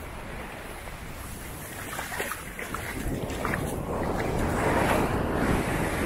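Ocean surf breaking on a sandy beach, growing louder about halfway through as a wave comes in, with wind rumbling on the microphone.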